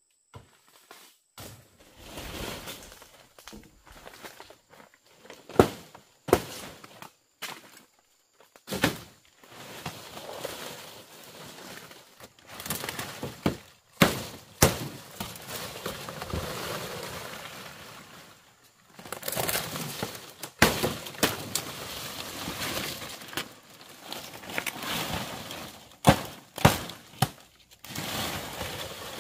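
Hand building work with wood and bamboo: irregular sharp knocks and thuds, some very loud, between stretches of rough scraping noise.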